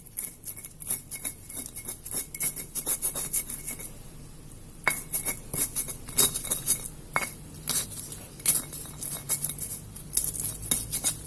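Spices being ground by hand into a paste: irregular sharp knocks and clinks, several a second, with a short lull about four seconds in.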